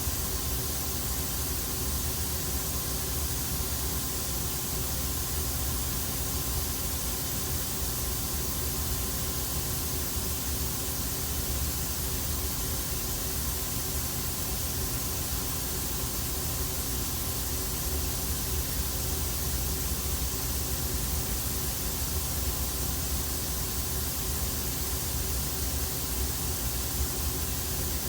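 Steady hum and hiss from a powered-up CNC turning centre standing idle, its pumps and fans running with no cutting.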